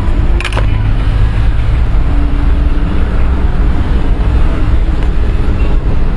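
Loud, steady low rumble with a hiss over it, with one sharp click about half a second in.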